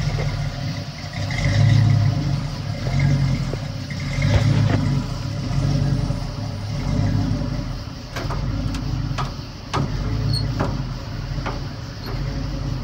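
Pickup truck's fuel-injected 350 V8 idling, its low exhaust note swelling and easing every second or so. Several sharp clicks come in the second half.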